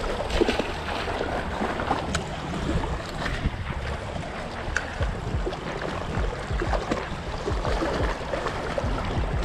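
Small waves lapping and splashing against a rocky shoreline, with wind buffeting the microphone. A splash about half a second in as a released snook drops into the water.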